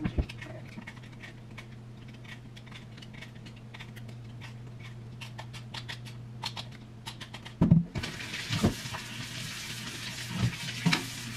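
Kitchen counter work: scattered small clicks and knocks of food being handled over a steady low hum. About eight seconds in a steady hiss starts, with a few louder knocks.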